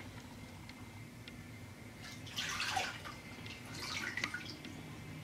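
Water sloshing and splashing as a hard plastic gun case is lifted out of a tub of water, water running and dripping off it. The splashes come in two short bursts, about two and a half seconds in and again about four seconds in.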